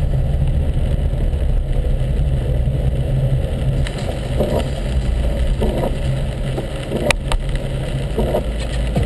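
Car engine and tyres on a wet road, heard inside the cabin as a steady low rumble, with two sharp clicks about seven seconds in.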